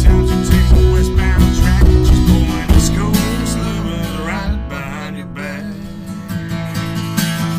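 Country song played with a strummed acoustic guitar. The low end drops away about halfway through and the music gets quieter for a few seconds before building back up near the end.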